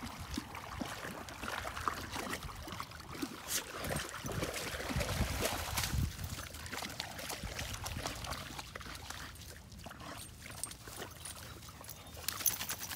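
Water splashing and sloshing as dogs, a Newfoundland puppy among them, wade through shallow river water. The splashing is busiest around the middle and lighter near the end.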